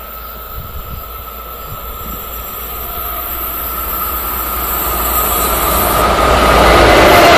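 Electric-locomotive-hauled passenger train approaching at speed on the electrified main line, growing steadily louder with a thin, steady high whine over the rumble, until the locomotive reaches the microphone near the end.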